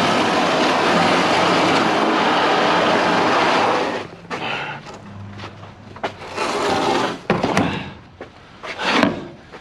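Heavy pallet of scrap being dragged and shoved: a loud continuous scrape for about four seconds, then shorter scrapes and a few sharp knocks near the end.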